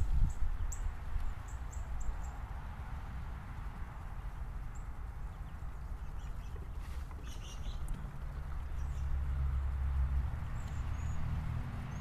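Birds at a bird bath: a few short, high, thin calls, mostly in the first two seconds and again near the end, and a brief flurry of splashing about seven seconds in as an American robin bathes, over a low rumble.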